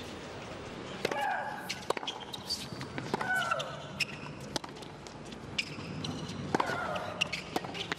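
Tennis rally on a hard court: repeated sharp pops of the racket striking the ball. On three of the shots, about a second in, three seconds in and six and a half seconds in, the player hitting lets out a loud shriek that falls in pitch.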